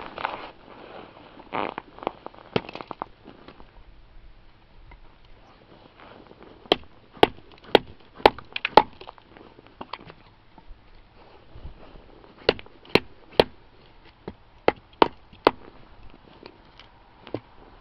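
Wooden baton striking the spine of a G-10 and titanium composite knife to drive it through a piece of wood on a chopping block. The knocks are sharp and come in quick runs about half a second apart, with pauses between the runs; handling rustle comes before the first run.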